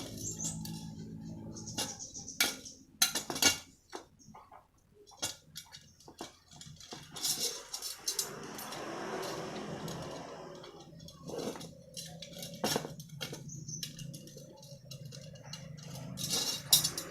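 Wire spokes of a motorcycle wheel clinking and clicking against each other and the hub as they are fitted by hand, in irregular light metallic knocks.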